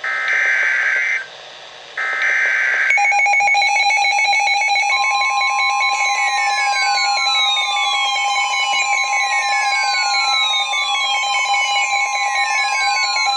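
Emergency Alert System signal: two short bursts of the rasping digital data tones, then about three seconds in a steady electronic alert tone starts. About five seconds in a second, slightly higher steady tone joins it, along with sweeps that fall in pitch and repeat about every three seconds.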